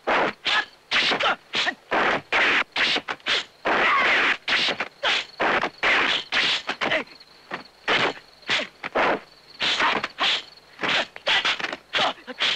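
Rapid exchange of kung fu film fight sound effects: dubbed punches, blocks and arm swishes in quick irregular strikes, a few stretched into longer whooshes. A faint steady high tone runs beneath them.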